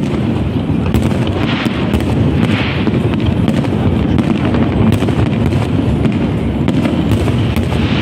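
Aerial firework shells bursting in rapid succession: a dense, unbroken rumble of booms with many sharp cracks.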